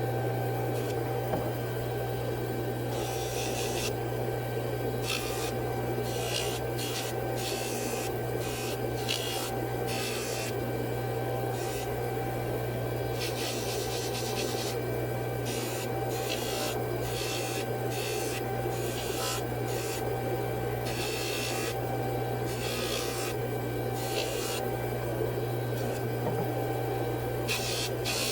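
Metal being filed or abraded on a jeweler's bench: irregular rasping strokes, each under a second, over a steady electrical hum.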